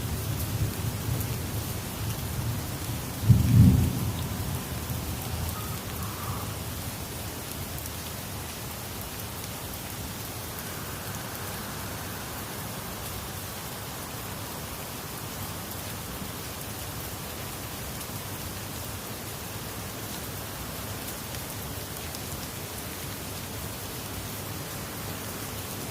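Steady rain falling, with low thunder rumbling at the start and a short, louder burst of thunder about three and a half seconds in, after which the rain goes on evenly.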